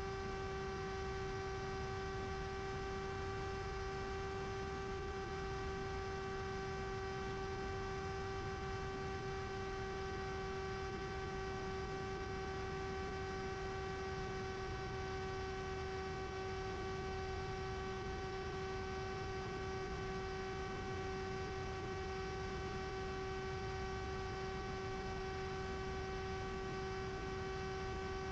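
Steady whine of the Mini Drak flying wing's electric motor and pusher propeller at a constant cruise throttle, heard from the onboard camera. The whine holds one unchanging pitch with a stack of overtones, over a low rush of air.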